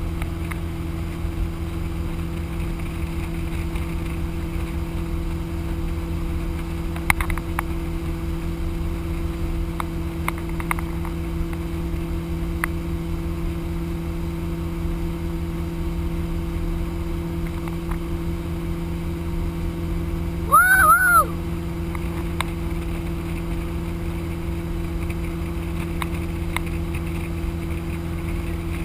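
Motorboat engine running steadily at speed while towing a water skier, a constant drone with the rush of the wake. About two-thirds of the way through, a short loud pitched call rises and falls twice, like a person's shout.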